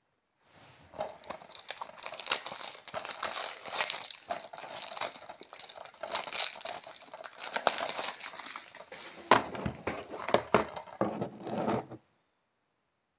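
Cellophane shrink-wrap being torn and peeled off a plastic DVD case: dense crinkling and crackling with sharp clicks and snaps, which stops suddenly near the end.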